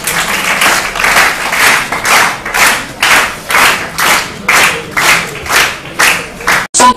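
Studio audience clapping, swelling about twice a second, then cutting off suddenly near the end.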